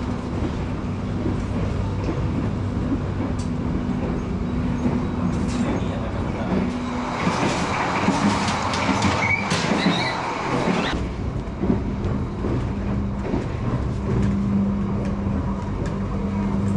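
Passenger train running on the rails, heard from inside a carriage: a steady rumble with a low hum. About a third of the way in, the rail noise turns louder and hissier for around four seconds, then drops back suddenly.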